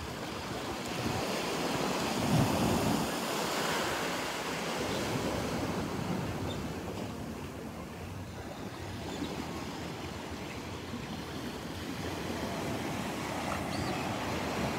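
Small waves breaking and washing up on a sandy beach, the surf swelling about two seconds in and again near the end. Wind gusts on the microphone.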